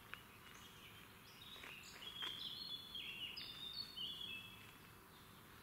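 A songbird singing a run of short whistled notes that jump between pitches, over faint outdoor background noise.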